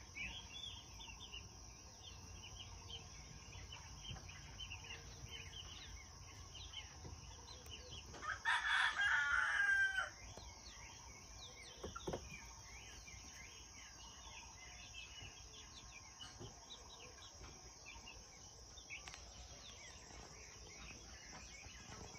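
A rooster crows once, a loud call of about two seconds some eight seconds in. Behind it, young chicks cheep in short high peeps throughout, over a steady high insect drone.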